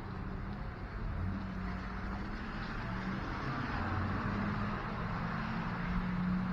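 A motor vehicle running on a snowy street, a low engine hum with tyre hiss that slowly grows louder toward the end.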